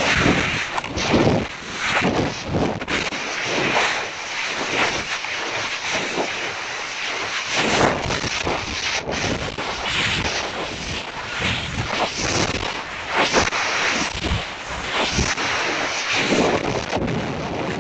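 Air rushing over the onboard camera's microphone as the separated high-power rocket falls on its shock cord after apogee, swelling and fading unevenly as the airframe tumbles.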